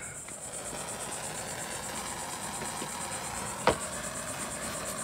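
Crickets chirping steadily in the background, with one sharp click about three and a half seconds in.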